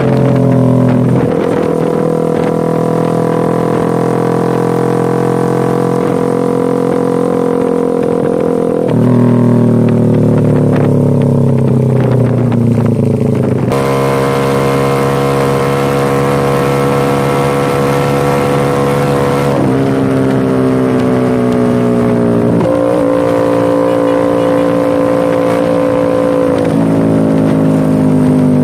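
Honda TMX 125 Alpha's single-cylinder four-stroke engine running under way through an SC Project slip-on muffler, heard close to the muffler. The note climbs slowly, then jumps abruptly to a new pitch about six times as the gears are changed.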